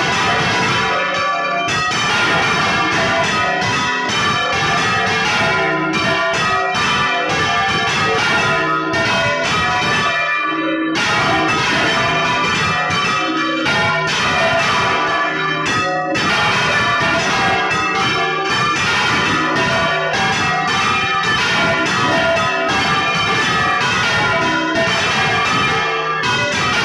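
Several large church bells swung by hand on ropes, ringing together in a continuous, dense peal of overlapping strikes that hum on after each stroke.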